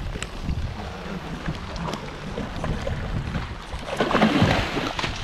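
Wind and sea noise against a boat hull. About four seconds in, a hooked shark thrashes and splashes at the surface beside the hull, giving a louder burst of splashing.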